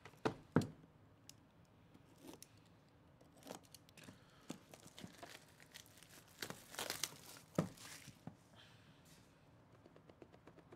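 Plastic shrink wrap being torn and crinkled off a cardboard trading-card box (a 2024 Leaf Metal Football Jumbo hobby box), with a longer rustle of tearing about two thirds of the way through. A few knocks of the box being handled, the loudest two close together just after the start.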